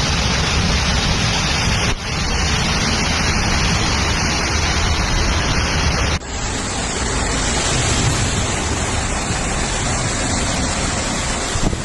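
Loud, steady rush of floodwater pouring through a street, with heavy rain noise, across three spliced clips that cut abruptly about two and six seconds in.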